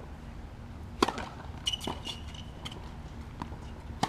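Tennis serve: the racket strikes the ball with a sharp pop about a second in, followed by several fainter knocks of ball on racket and court. A brief thin high squeak comes just after the serve.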